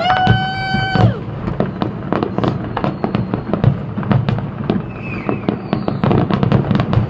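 Fireworks going off in quick succession, a dense run of bangs and crackles. A steady high whistle sounds over them for about the first second.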